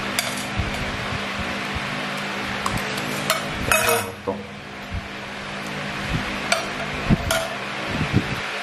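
Metal spoon clinking against a stainless steel compartment tray several times. The loudest is a quick cluster of ringing clinks about four seconds in, as the spoon is set down in an empty compartment. Fainter clinks come later, over a steady background hum.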